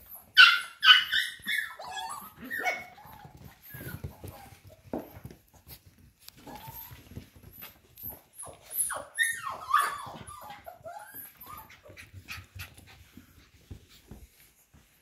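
Mini goldendoodle puppies yipping and whining in short high-pitched bursts as they play with a rope toy, loudest in the first two seconds and again about nine seconds in, with scattered clicks between.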